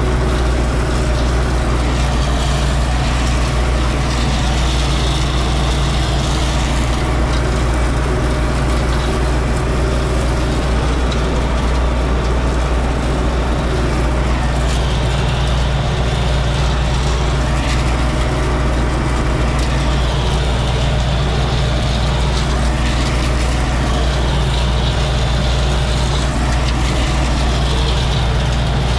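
MTZ-82 Belarus tractor's four-cylinder diesel engine running at a steady speed, heard from inside the cab.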